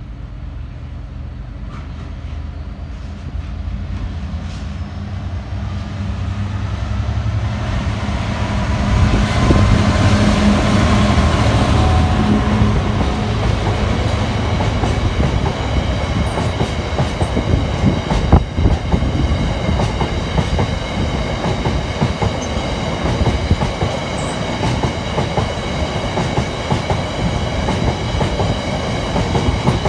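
Class 66 diesel locomotive approaching and passing, its two-stroke V12 engine running and loudest about ten seconds in. A long rake of hopper wagons follows, clattering over the rail joints with a steady high ringing from the wheels.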